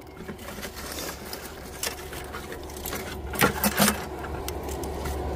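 Scattered metallic clinks and knocks of scrap wire and metal debris being handled off a fishing magnet, with a louder cluster of knocks about three and a half seconds in. Under them runs a low rumble of road traffic that grows louder toward the end.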